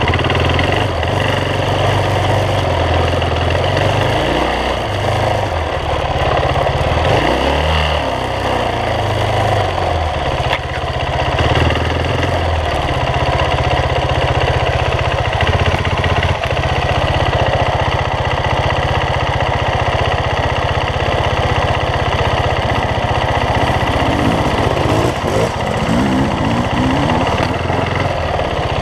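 Dirt bike engine running at low revs while ridden along a dirt trail, the revs rising briefly a few times as the throttle opens.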